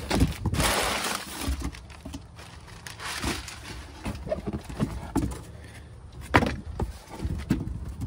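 Crumpled kraft packing paper rustling and crinkling as it is pulled out of a cardboard box, loudest in the first second or so. A few sharp knocks near the end as the box and the packaged kit are handled.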